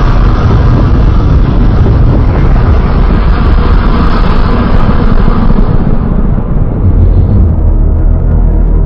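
Loud custom giant-monster sound effect: a dense, low rumble that holds steady, its higher hiss slowly dying away over the last few seconds.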